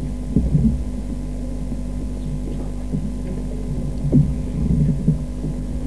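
Steady electrical hum from the public-address system, with a few soft knocks and rustles as the podium microphone changes hands.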